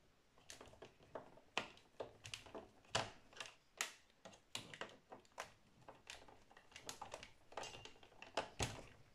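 Screwdriver working the last screw out of a metal stand bracket on the back of an all-in-one computer: a run of irregular sharp clicks and ticks, a couple a second.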